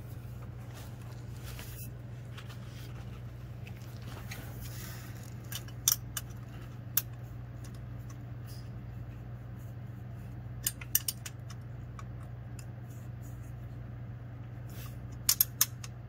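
A steel combination wrench clinking against the belt tensioner's upper nut and the metal around it as it is fitted and turned: sharp metallic clicks, a few single ones and a quick cluster of three near the end. A steady low hum runs underneath.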